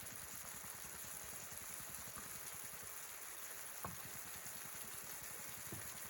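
Bok choy sautéing in an oiled pan: a faint, steady sizzle, with one light tap about four seconds in.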